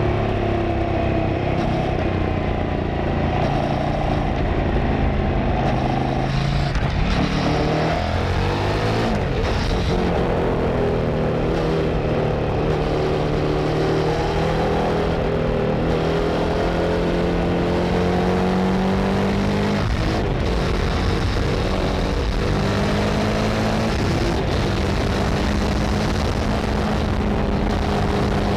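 Kove 800X Pro motorcycle's engine and exhaust under way while riding, with wind rushing past. The engine note falls about a quarter of the way in, climbs slowly through the middle, drops sharply about two-thirds through as the bike shifts gear or comes off the throttle, then holds steady.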